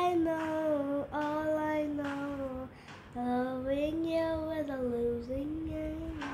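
A girl singing long, wordless held notes on her own, with no accompaniment, the pitch sliding gently up and down between them, and a short break a little under halfway through.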